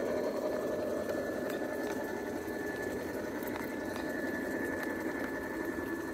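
Large-scale model diesel locomotive's Blunami sound decoder playing an EMD diesel engine sound, slowly fading as the train moves away, with a thin steady whine. A few clicks come from the carriage wheels over the rail joints.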